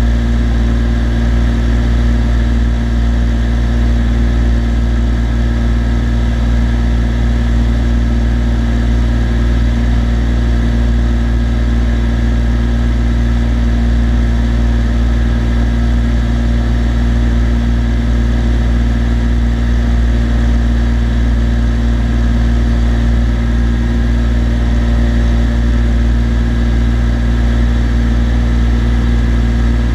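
A Cessna TU-206D's turbocharged six-cylinder engine and propeller running steadily in flight, a constant low drone with fixed tones and no change in power.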